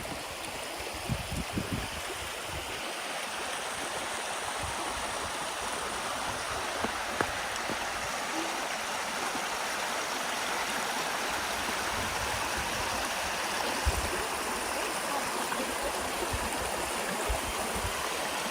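Rushing water of a stream running down a waterfall: a steady hiss that grows slightly louder, with a few brief low knocks.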